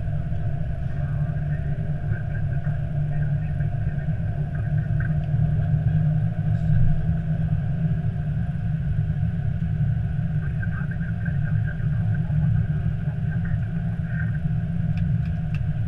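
Steady low rumble of an Airbus A320's cockpit as the airliner taxis.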